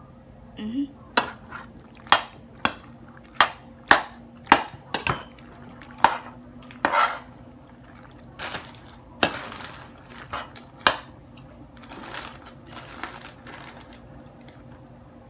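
Slotted spoon stirring thick creamy pasta in a stainless steel pot, knocking against the pot about twice a second at first, then giving way to softer, longer wet scraping strokes.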